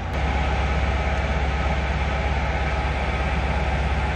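Steady low drone of a ship's engine and machinery, heard on board. It steps up a little in level just after the start, then holds even.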